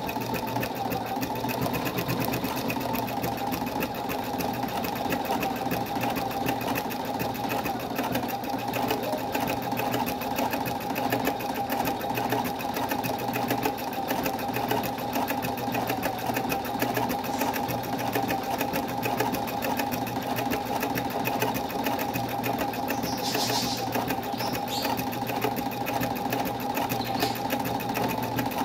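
Singer embroidery machine stitching steadily: a fast, even run of needle strokes over a constant motor whine.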